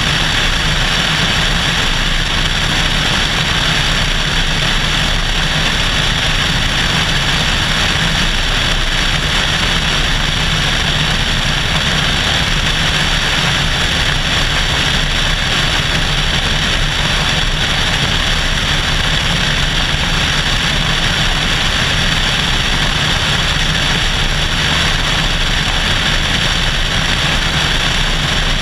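Cessna 172SP's four-cylinder Lycoming engine and propeller running steadily in cruise flight, with wind rushing over the camera mounted outside the airframe. It is an even, unchanging drone.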